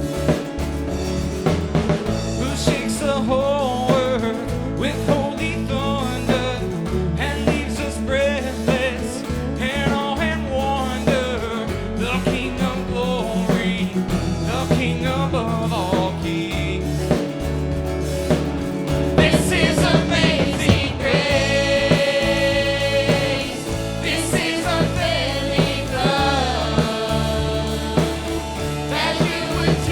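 Contemporary worship band music: a voice singing a melody over guitar, bass and drums.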